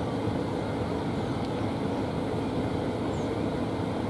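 Steady, low outdoor background rumble with no distinct event.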